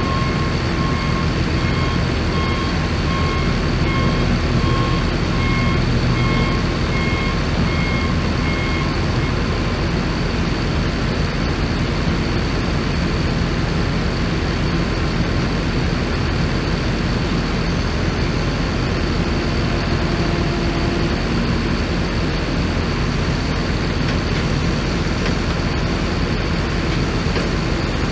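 Heavy equipment engines running steadily under load, with a back-up alarm beeping in a regular rhythm for about the first nine seconds and then stopping.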